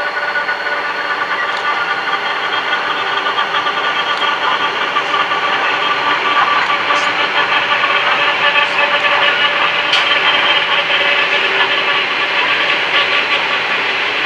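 Freight train hauled by three diesel-electric locomotives passing, their engines running under power as the loaded hopper wagons roll by on steel rails, a steady rumble with a cluster of humming tones that grows gradually louder.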